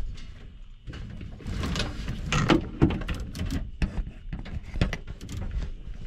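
Handling noise of a small camera being worked through a tight blower compartment: a string of irregular knocks, clicks and scrapes as it bumps and rubs against the sheet-metal housing. Several louder knocks come in the middle.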